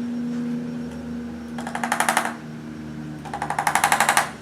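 Arthrostim instrument adjusting tool firing two bursts of rapid taps, about a dozen a second, into the patient's body: a short burst just under two seconds in and a longer one about a second later.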